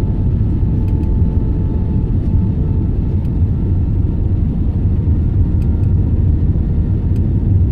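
Steady low rumble inside a jet airliner's cabin during landing, with a faint hum of steady tones and a few small ticks.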